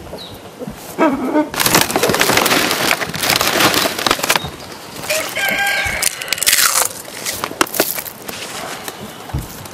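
Farmyard rooster and chickens calling, with a pitched call about a second in and another around the middle. A long stretch of rough, crackly noise comes between them.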